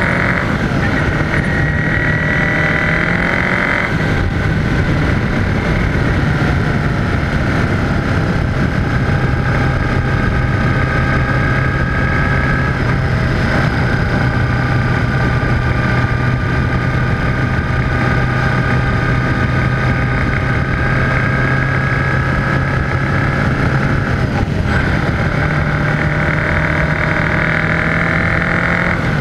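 1978 Honda GoldWing's flat-four engine running at road speed under a steady rush of wind and road noise. The engine note drops about four seconds in, stays lower through the middle and picks up again near the end.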